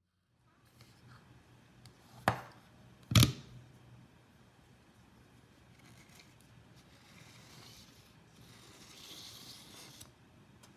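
Two sharp knocks about a second apart, then a thin knife scraping faintly against the inside wall of an aluminium chiffon tube pan as it is worked around the cake to loosen it.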